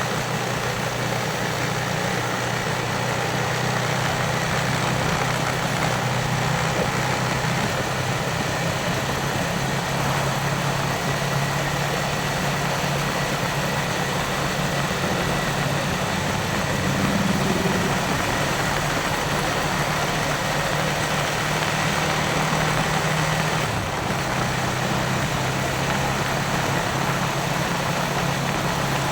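Yamaha Vixion motorcycle's single-cylinder engine running steadily, with wind and road noise on the microphone. The engine note swells briefly about halfway through and eases off a little later on.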